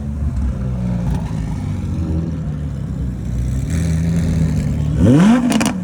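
Supercar engine running with a low, unsteady rumble, then revved hard near the end in a quick rising sweep, the loudest moment.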